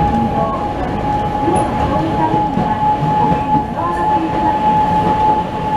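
Toden Arakawa Line tram running along its track, heard from inside the driver's cab: a steady rumble of wheels and running gear under a steady high whine, with a few light clicks.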